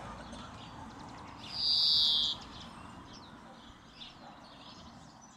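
A bird gives one loud, harsh call lasting about a second, a little under two seconds in, with faint chirps of other birds around it.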